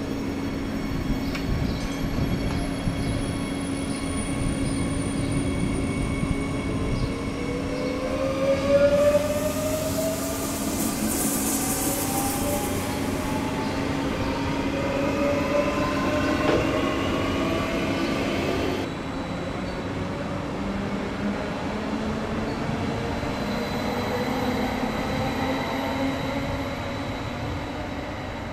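Traction motors of an SBB FV-Dosto double-deck electric train whining, several tones rising steadily in pitch as it accelerates away, over a steady low hum. About nine seconds in, a high hiss starts suddenly and lasts a few seconds.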